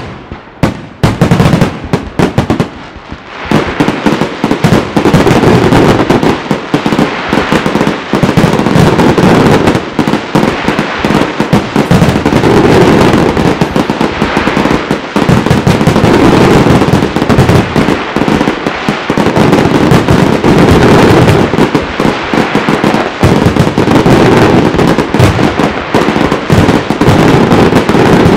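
Aerial firework shells bursting in a dense, very loud barrage, bang after bang with crackling between them. The bursts thin out briefly about one to three seconds in, then run almost without a gap.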